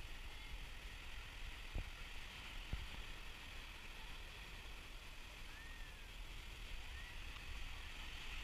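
Faint steady beach ambience: gentle surf washing on the shore, with low wind rumble on the microphone and a couple of soft knocks.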